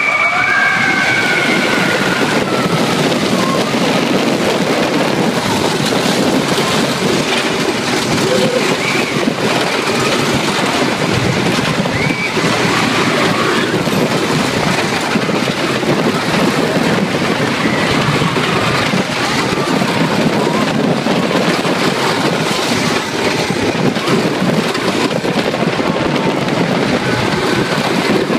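GoldStriker wooden roller coaster train running at speed over its track, a loud steady rumble and rattle throughout. Riders shriek near the start.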